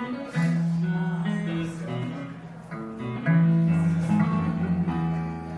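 Live band music: plucked string instruments playing over long held low notes.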